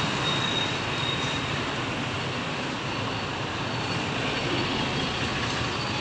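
Steady rumble and hiss of a moving road vehicle in traffic, with a faint high whine during the first couple of seconds.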